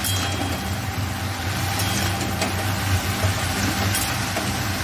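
A spatula stirring leafy greens in a pan, with a few short clicks against the pan. A steady low machine hum runs underneath throughout.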